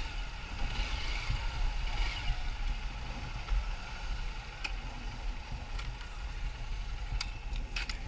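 Motorcycle engine running low and steady as the bike rolls at walking pace, with a few sharp clicks near the end.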